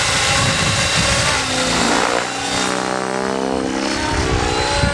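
Radio-controlled stunt helicopter taking off and climbing fast. Its motor and rotor whine shifts in pitch about halfway through, over the steady rush of the blades.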